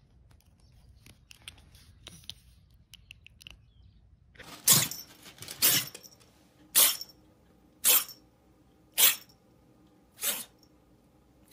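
A grey tabby kitten sneezing in a fit: six short, sharp sneezes about a second apart, starting about four seconds in.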